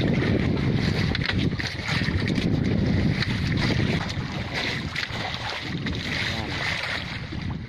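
Steady wind rumble on the microphone with water moving around the hull of a small outrigger fishing boat at sea.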